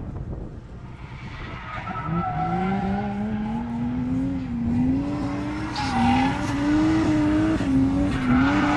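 Drift car's engine coming closer and growing louder, its revs rising and falling repeatedly as the car slides sideways through a corner, with tyres squealing and smoking.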